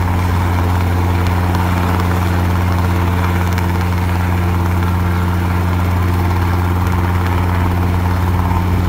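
Small two-bladed piston helicopter hovering low over grass, its engine and rotor making a steady low drone with no change in pitch.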